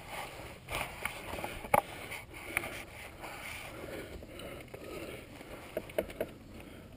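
Scattered clicks and knocks over faint rustling, from a dirt bike being handled and moved by hand with its engine off.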